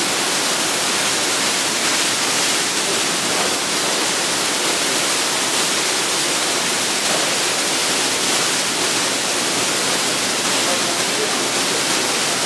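Sino Star C7 brush car wash machine spraying water and scrubbing a car with its rotating brushes: a steady hiss of water spray.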